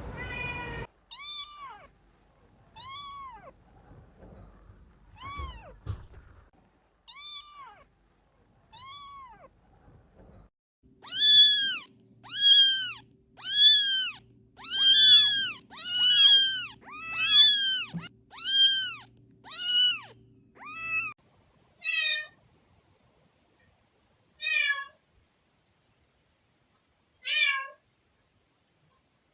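Kittens meowing again and again, high-pitched calls that rise and fall, one every second or two. In the middle the meows come faster and louder, some overlapping, over a faint steady low hum, and near the end only a few short meows remain.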